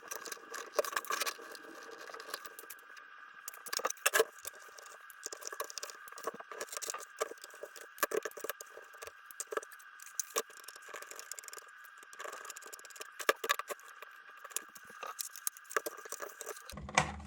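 Small plastic parts of an RC model truck being handled and taken apart: irregular light clicks and rattles, some sharper, over a faint steady high hum.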